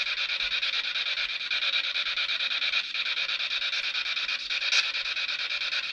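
SB-7 spirit box sweeping through radio stations: a steady hiss of static chopped into a rapid stutter, with a couple of brief dips.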